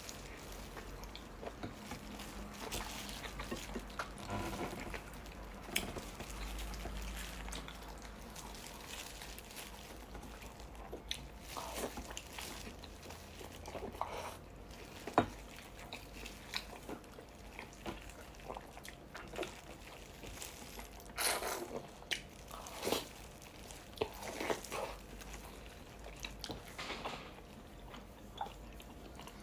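Close-up eating sounds: a person chewing and biting into boiled vegetables from sinigang soup, with soft wet mouth sounds and scattered small clicks, and a cluster of louder bites about two-thirds of the way through.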